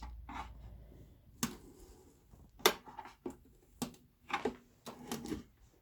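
A speaker cabinet being handled and opened up, with a string of sharp clicks and knocks at uneven intervals.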